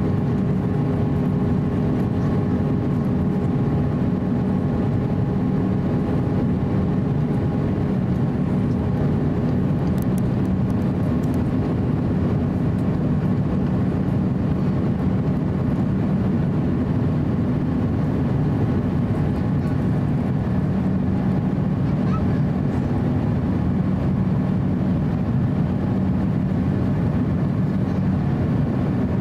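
Cabin noise of an Airbus A350-900 climbing after takeoff, its Rolls-Royce Trent XWB turbofans heard through the fuselage at a window seat by the wing: a steady, even rumble with a low hum and a few faint whining tones, two of the higher tones fading out about a quarter of the way in.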